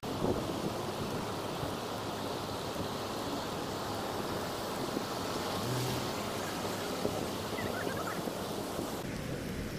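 Steady city street noise: a haze of traffic, with a few faint short chirps a little before eight seconds.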